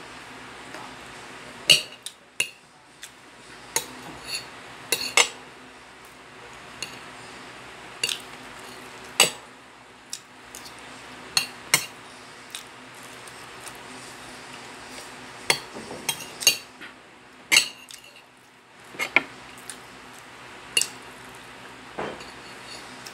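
Metal spoon and fork clinking against a ceramic plate while eating, in irregular sharp taps, several of them ringing briefly.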